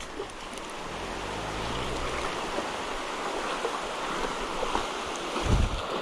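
Steady rushing hiss of a fast, rocky stretch of small river, building over the first two seconds and then holding even. A short low bump comes near the end.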